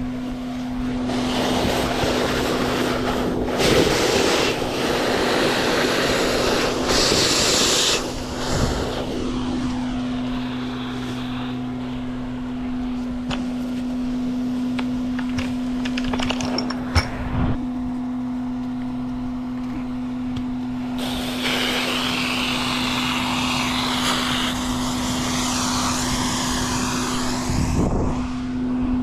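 Septic pump truck's engine running at a steady drone, with two long stretches of hissing noise over it and one sharp click about halfway through.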